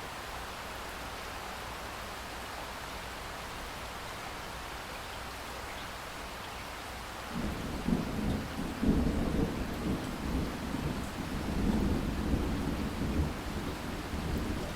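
Steady rain hiss, then about halfway through a long, low thunder rumble rolls in and keeps going, swelling and fading in waves over the rain.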